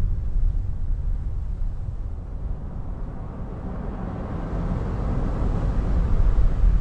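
Low, rumbling field-recording noise that dips in the middle and swells again toward the end.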